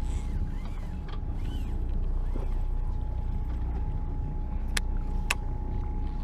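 Sportfishing boat's engine running with a steady low rumble and a faint steady whine. Two sharp clicks, about half a second apart, come near the end.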